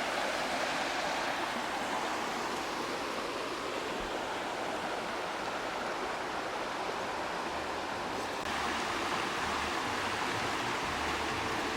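Steady rush of running water, with a slight change in its sound about eight seconds in.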